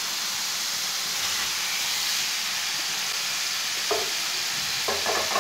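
Tomato-onion masala sizzling steadily in a frying pan as fried beef koftas are added to it.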